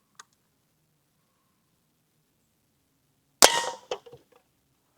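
A single sharp metallic clang about three and a half seconds in, ringing briefly before dying away, followed by a couple of lighter knocks; a faint click near the start.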